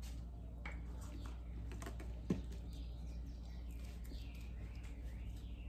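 Light clicks and taps of small painting tools being handled on a countertop, over a steady low hum. From about halfway through, faint birds chirp.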